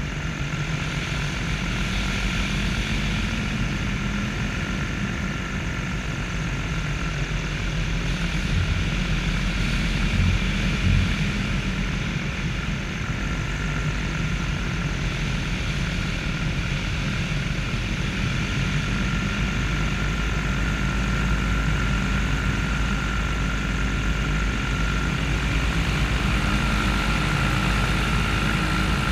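Paramotor engine and propeller running steadily in low, level flight, with a thin high whine over the drone that gets a little louder and higher near the end.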